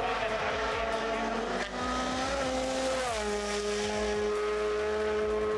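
Toyota GR Yaris Rally1's turbocharged four-cylinder rally engine at full throttle, its pitch climbing, then dropping sharply about three seconds in and holding steady.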